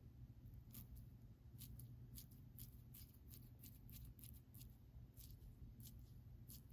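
Faint, short scratchy rubs of a damp sponge pressed and wiped over a paper transfer sheet on a clay spoon rest, coming irregularly about once or twice a second over a low steady hum.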